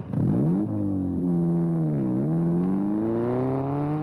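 Car engine pulling away and accelerating. Its pitch rises, dips briefly about a second in and again about two seconds in as it changes gear, then climbs again.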